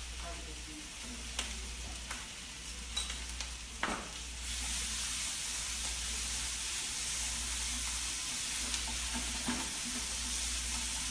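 Squid stir-fry sizzling in a frying pan while being stirred with wooden chopsticks. A few clicks of the chopsticks against the pan come in the first few seconds. About four seconds in the sizzle grows louder and steadier.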